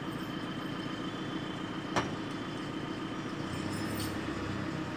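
Telehandler's diesel engine running steadily under the heavy load of the jet, with a single sharp knock about two seconds in and a deeper engine tone joining about three and a half seconds in.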